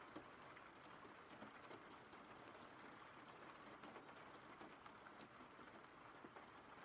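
Faint steady rain ambience, an even patter with scattered drops ticking.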